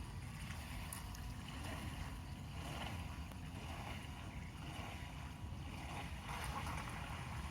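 Wind buffeting the microphone in a steady low rumble, with uneven swells of water splashing and lapping.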